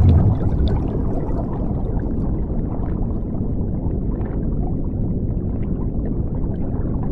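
Underwater bubbling and low rumble, as in an underwater ambience sound effect. It swells in a gush of bubbles at the very start, then runs on steadily with small scattered pops.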